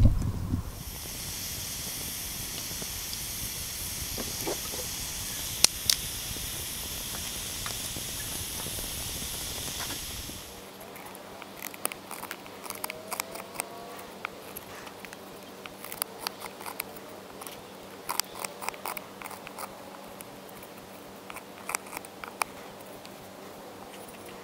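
Wood fire burning in a small folding steel Firebox stove: a steady hiss with two sharp pops about six seconds in. It stops abruptly about eleven seconds in, giving way to a Condor Bushcraft Basic knife carving a notch in a peeled wooden stick: irregular short scrapes and clicks of the steel blade biting wood.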